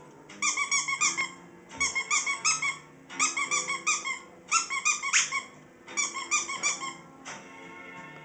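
Squeaky dog toy squeezed in five quick bursts, each a rapid run of high squeaks, with one squeak sweeping sharply upward about five seconds in. The squeaks are the toy the setter is waiting for.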